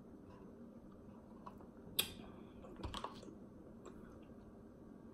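Quiet clicks and knocks from a drinking cup and food being handled: one sharp click about two seconds in, then a low knock with a few small clicks just before three seconds.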